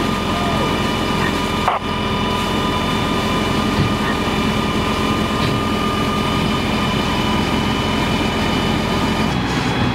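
Fire trucks' engines and pumps running steadily with a whine, while water from a fire tanker's rear dump gushes into a portable folding drop tank.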